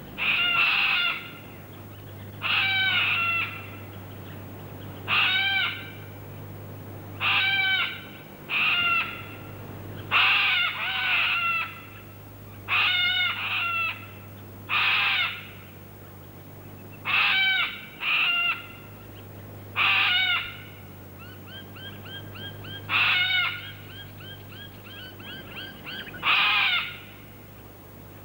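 A bird calling over and over: loud, drawn-out calls about every two seconds. In the last third, a faster run of small chirps from another bird falls between them. A steady low hum lies underneath.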